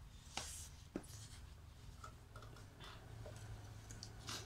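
Metal fork clinking and scraping against a stainless steel pot and an aluminium food tin: a few light, sharp taps with quiet stretches between.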